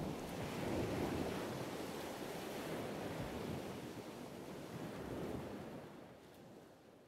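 A steady rushing noise, like surf, that swells a little and then fades away over the last couple of seconds.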